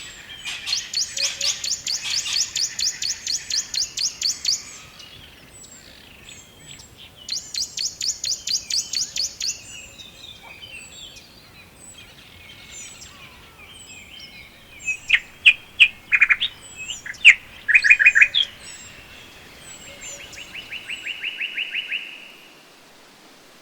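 Wild songbirds singing in a forest: a rapid high trill of about five repeated notes a second sounds twice in the first half, loud sharp chirps follow later, and a lower, quicker trill near the end. A faint steady hiss lies beneath.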